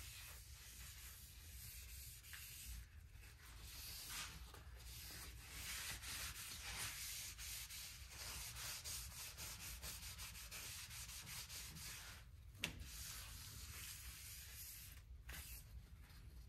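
A rag rubbing oil into a sanded hardwood cutting board, making faint, uneven back-and-forth wiping strokes. A single light knock comes about three-quarters of the way through.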